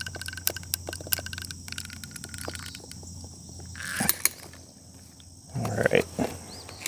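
Manual caulking gun in use: a string of irregular light clicks from the ratcheting trigger and plunger rod, with a couple of louder clacks about four seconds in.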